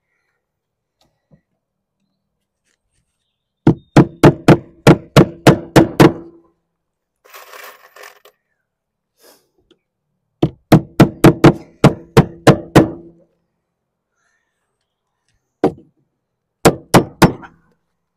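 A claw hammer drives nails through lead sheet into a plywood cheek. There are two runs of about ten quick blows each, roughly four a second, then a single blow and three more near the end.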